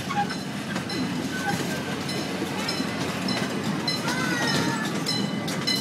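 Small amusement-park train running along its track: a steady rumble with light, repeated clicks of the wheels on the rails.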